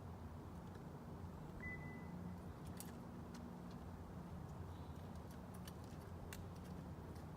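Faint, low, steady hum with a few light clicks and one short high beep about two seconds in.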